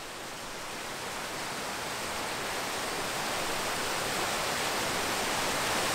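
Water pouring down the stepped cascades of a large outdoor fountain, a steady rushing splash that grows slowly louder.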